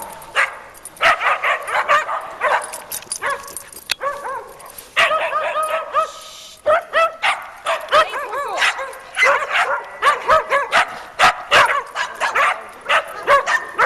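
Dog yipping over and over: short, high-pitched yelps and whines in quick runs, with brief pauses between them.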